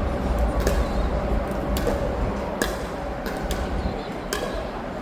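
Pickleball paddles striking the ball in dink rallies: sharp pops about once a second at uneven spacing, over a steady low rumble.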